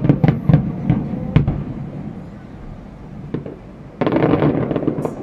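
Aerial fireworks exploding: a sudden loud bang, then several sharper reports over the next second and a half. About four seconds in comes a second, dense crackling burst that lasts about a second.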